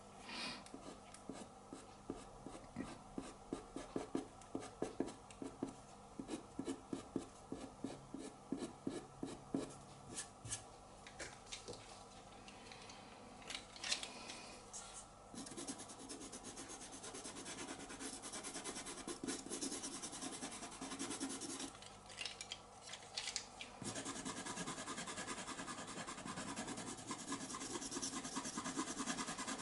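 Pastel rubbing and scratching on paper: many quick short strokes of a soft pastel stick in the first half, turning into a steadier, slightly louder rubbing near the end as a pastel pencil works over the surface.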